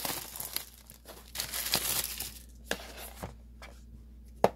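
Clear plastic shrink-wrap being torn and crinkled off a cardboard box, crackling for the first two seconds or so. It is followed by a few light sharp clicks, the loudest near the end.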